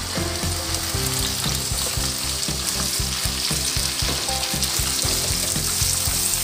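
Chopped okra sizzling in hot oil in a metal pot just after it is tipped in, with a steady hiss. A wooden spatula stirs it, knocking and scraping against the pot many times.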